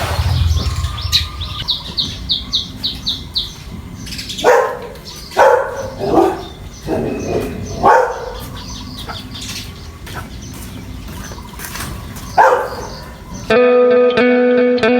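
Birds calling outdoors: a quick run of about half a dozen high chirps about a second in, then several louder separate calls. Guitar music starts suddenly near the end.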